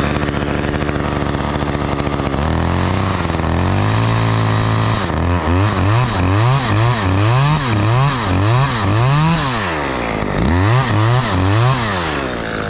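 Two-stroke Husqvarna chainsaw cutting into a pine trunk to top the tree. The engine runs steadily at first, speeds up a couple of seconds in, then its pitch rises and falls over and over as it works through the cut.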